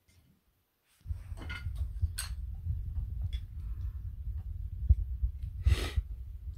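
A person eating fried tempura close to the microphone: after a second of quiet, a steady run of low rumbling bumps with a few short crisp crunches, the loudest nearly six seconds in.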